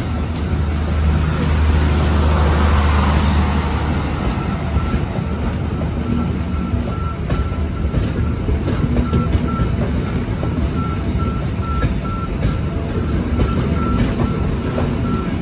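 Passenger coaches of a train rolling past at close range, the wheels rattling and clicking over the rail joints, with a low hum that fades about four seconds in. From about five seconds in, a short high beep repeats about three times a second.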